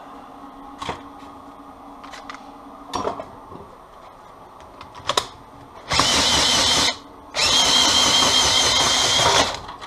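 A few sharp handling clicks, then a cordless drill driving a homemade roller rig that crushes cable insulation for copper stripping. The drill runs in two bursts: a short one about six seconds in, then a longer one of about two seconds, each with a high, wavering motor whine.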